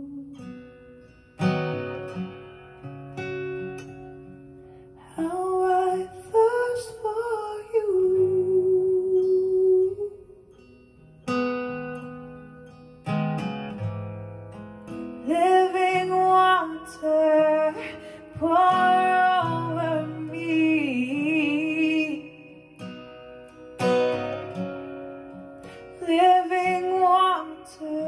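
A woman singing a worship song while accompanying herself on a strummed acoustic guitar; sung phrases of a few seconds alternate with stretches where the guitar chords ring on alone.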